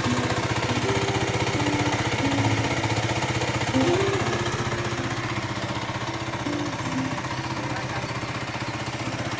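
Race GSR 125 motorcycle engine idling steadily with a fast, even pulse.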